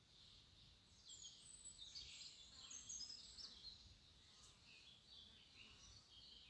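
Faint twittering of small birds: a quick run of high chirps about a second in, thinning out in the second half, over faint background noise.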